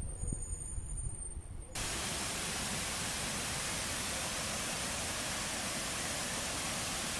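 Steady rush of fast-flowing river water over rapids, cutting in abruptly about two seconds in, after a low rumble.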